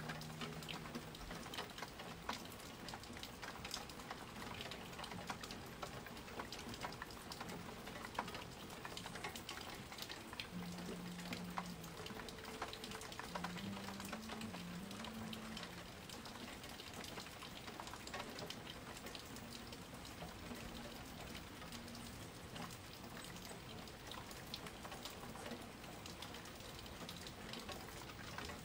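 Steady rain falling, with many individual drops clicking on a surface.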